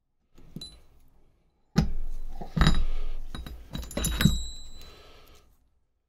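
Steel transmission gears and shaft of a Triumph Rocket 3 gearbox clinking and knocking together as they are handled. There are a few light clicks, then several sharp metallic knocks with a brief ring, the loudest about two and a half and four seconds in.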